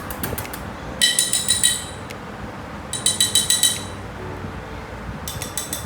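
Three short bursts of rapid, high, ringing clinks: about a second in, about three seconds in, and again near the end.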